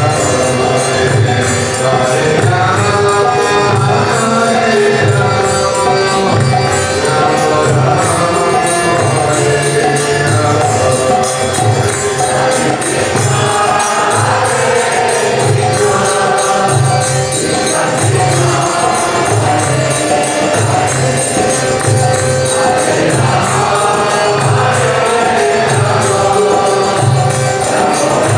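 Kirtan music: a harmonium and chanted singing with a group singing along, over a steady drum beat and the jingle of hand cymbals.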